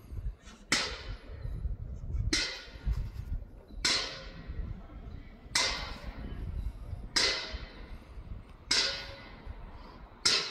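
Black bear working at the lid of a steel bear-proof trash bin, the metal clanging sharply about every second and a half, seven times, each clang ringing briefly. The bin stays shut: the bear cannot get it open.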